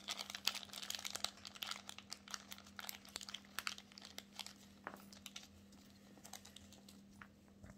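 Faint small clicks and rustles of hands handling a stainless-steel rebuildable tank atomiser (RTA), its airflow ring being turned open. The clicks come thick at first and thin out after about five seconds.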